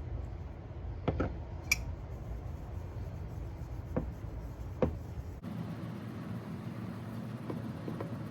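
A few light clicks and taps of small objects being handled over a low steady hum, the hum changing abruptly about five seconds in.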